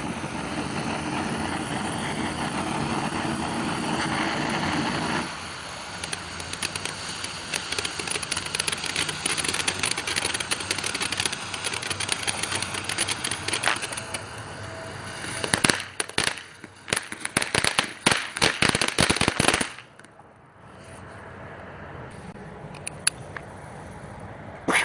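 Consumer fireworks going off: dense crackling, then a rapid run of loud bangs like a firecracker string lasting about four seconds, which stops suddenly. A steady rushing noise fills the first five seconds before the crackling starts.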